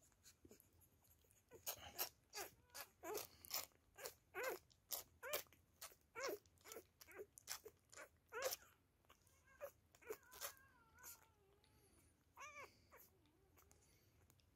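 Very young beagle puppy whimpering: a quick run of short, squeaky cries, two or three a second, then a thin wavering whine and one more cry near the end.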